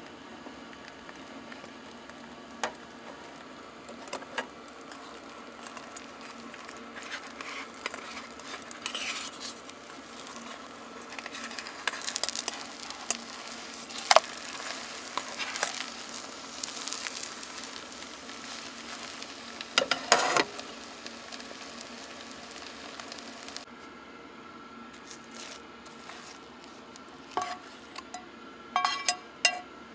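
Food sizzling in a pan while it is stirred, with scrapes and clinks of a utensil against the pan. The sizzle drops away about three-quarters of the way through, leaving a few clinks.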